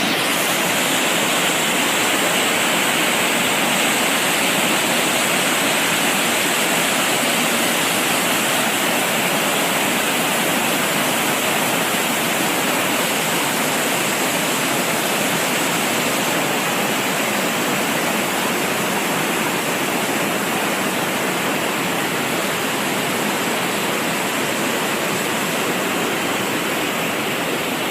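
The cascades of Agua Azul, water rushing and falling in a steady, continuous noise with no breaks.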